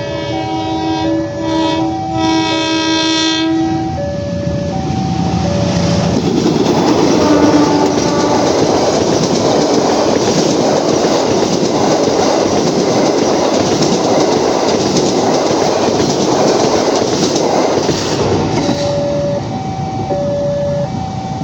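GE CC 206 diesel locomotive sounding its American-style multi-chime horn, a short blast and then a longer one, and then passing close by for about fifteen seconds with wheels clattering over the rail joints. An alternating two-note warning chime sounds under the horn and comes back near the end.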